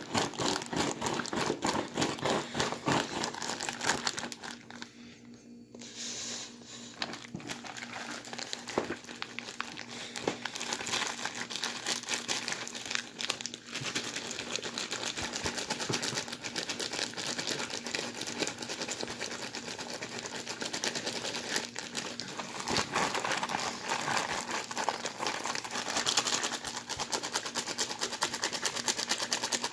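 A plastic bag holding ice, salt and a sealed bag of drink being shaken to freeze the drink into slush, crinkling and crackling continuously. There is a brief lull about five seconds in.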